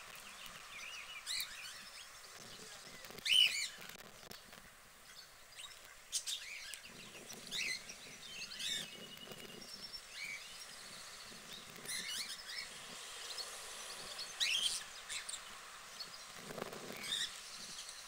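Small birds chirping and calling off and on, loudest about three seconds in, over steady outdoor background noise.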